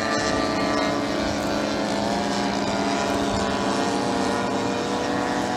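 Several radio-controlled model warbird planes flying at once, their propeller engines running in a steady, layered drone, the pitches slowly shifting as they move about.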